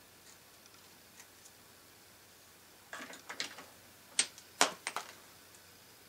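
Small metal clicks and scrapes of a screwdriver working a spring down inside a vintage truck's turn-signal housing. A few faint ticks come first, then a cluster of sharp clicks about three to five seconds in, the loudest two about half a second apart.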